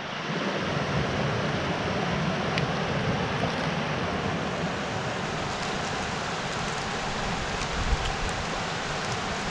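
Creek water rushing steadily over boulders, with a brief low thump about eight seconds in.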